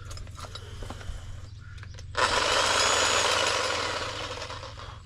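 Sawzall reciprocating saw with a short blade starting up suddenly about two seconds in, running for roughly three seconds and then fading out, after a few light knocks.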